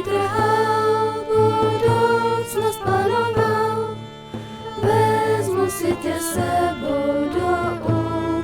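Music: a voice singing a song over instrumental accompaniment.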